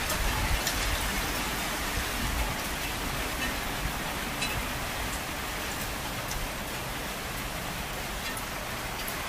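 Steady rain falling, an even hiss with scattered sharp drip ticks.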